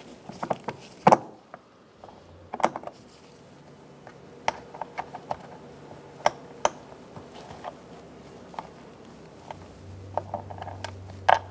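Scattered sharp clicks and knocks of hand tools and hard plastic trim being worked on a car door, the two loudest about one and two and a half seconds in, followed by a string of lighter ticks.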